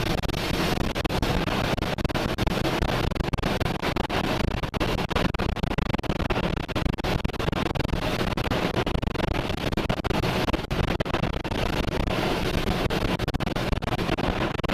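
Storm wind and rain: a dense, steady rushing noise with constant rapid flutter.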